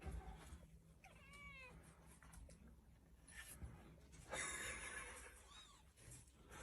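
A domestic cat meows once, quietly and briefly, about a second in, the pitch rising then falling. A short, soft burst of noise follows a few seconds later.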